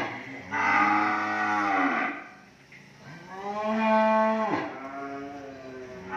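Cattle mooing: two long moos, the first about half a second in and the second about three seconds in, each bending in pitch and falling away at the end.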